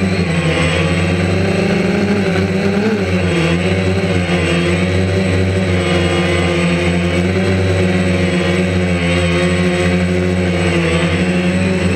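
DJI Phantom quadcopter's electric motors and propellers, heard up close from the drone itself: a loud, steady buzz made of several tones whose pitch wavers and shifts slightly as the motors adjust.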